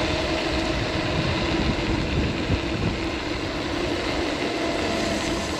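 Seated electric scooter riding at a steady speed: a steady electric-motor whine over rumbling tyre and wind noise.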